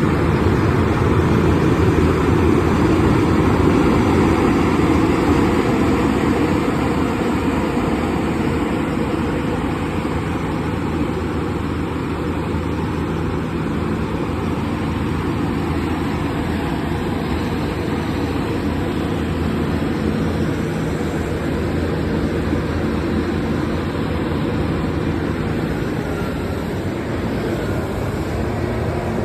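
Terex RH340 mining excavator's engine running steadily, a little louder for the first several seconds and then settling to an even level.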